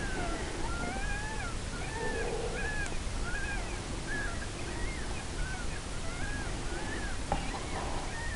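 Predator call squealing: a steady run of high, arching squeals, about two a second, of the kind used to draw foxes in to the gun.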